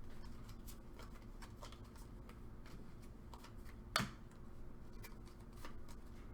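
Trading cards being handled and flipped through, making soft scattered clicks and rustles, with one sharper snap about four seconds in.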